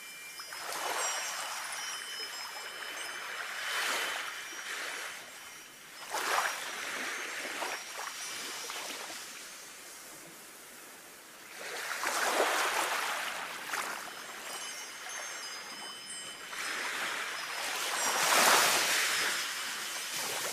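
Sea waves washing in and out in slow swells, about five of them, the loudest near the end. Over them a wind chime rings with faint high metal tones.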